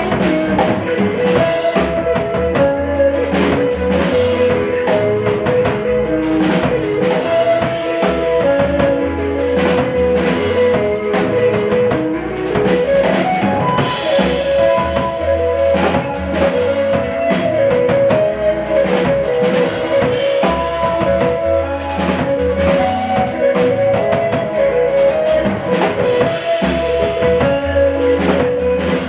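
Small jazz band playing live: drum kit with busy snare and bass drum under trombone, electric guitar and Bass VI. About twelve seconds in, a melodic line rises in a glide.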